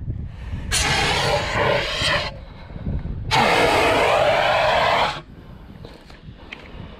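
Fire extinguisher discharging in two hissing bursts, each one and a half to two seconds long, about a second apart, as it is sprayed onto a pit bike that has caught fire. The bursts start and stop sharply.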